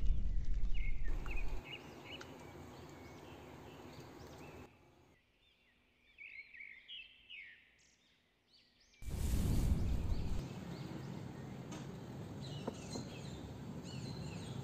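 Small birds chirping in quick runs of short rising and falling notes over a steady background hiss. The chirps stand alone in the middle where the hiss drops away. About nine seconds in, a louder rushing noise comes in for about a second and a half.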